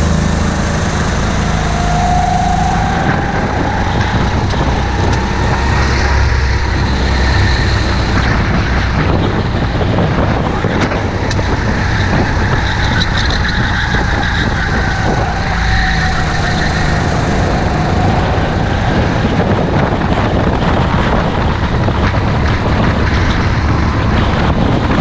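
A kart's engine heard from on board while lapping, its pitch rising and falling as it accelerates along the straights and eases off for the corners.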